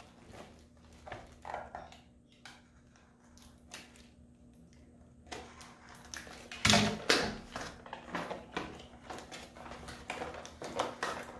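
A cardboard keyboard box being cut open with a box cutter and scissors and handled: short scratches, scrapes and knocks, the loudest cluster about seven seconds in, over a faint steady hum.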